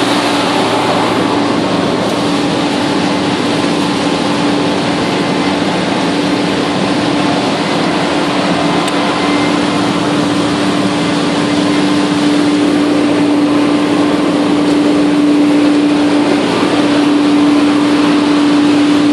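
Massey Ferguson 9690 combine running steadily while harvesting corn: a constant engine and machinery drone with a steady hum over a wide rush of noise, growing slightly louder about two-thirds of the way through.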